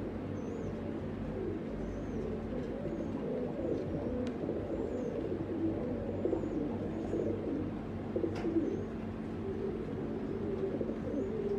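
Several domestic pigeons cooing continuously, their calls overlapping, with faint high chirps from another bird about once a second and two brief sharp ticks.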